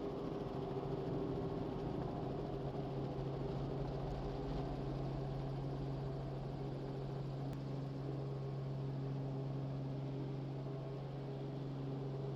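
Robinson R44 helicopter's engine and rotors running steadily on the ground, an even, unchanging hum.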